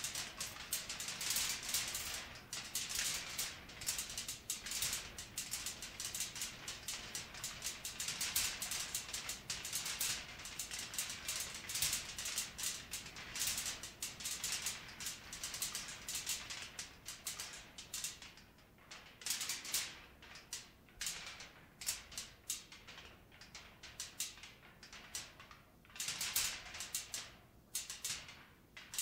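Irregular rattling and shaking, dense at first and thinning into scattered separate rattles after about eighteen seconds.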